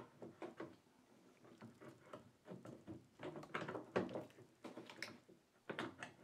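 Faint, irregular small clicks, knocks and scrapes of metal parts being jiggled as a gear unit of a cutaway transmission model is worked back along its rail to free it from its keyhole slots.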